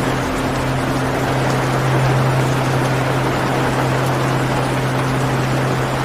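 Steady rushing forest nature-sound bed, even in level, under a low steady drone from an ambient music pad.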